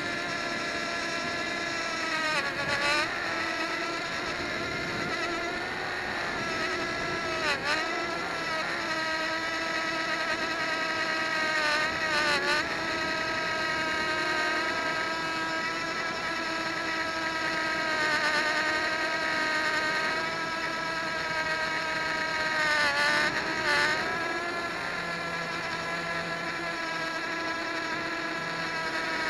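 Hubsan X4 micro quadcopter's four small motors and propellers whining steadily in flight, heard close up from a camera mounted beneath it. The pitch dips briefly and comes back a few times, near 3, 8, 12 and 23 seconds in, as the throttle changes.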